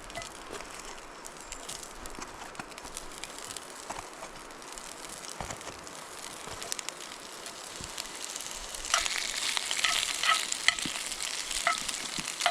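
Sausages frying in avocado oil in a hot pan: a steady sizzle with small spits and pops, which grows louder and pops more sharply about two-thirds of the way through.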